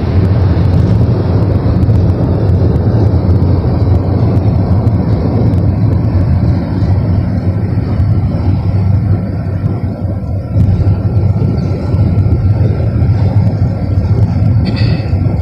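Steady low rumble of road, tyre and engine noise inside a car cruising on a freeway, with a brief high-pitched chirp near the end.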